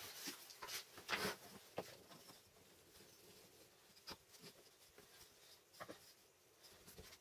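Faint, scattered taps and light scrapes of hand work on wooden vise parts, the loudest cluster about a second in.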